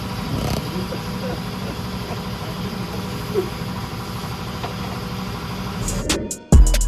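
An engine idling steadily, with faint voices in the background. Near the end, music with a heavy bass drum cuts in.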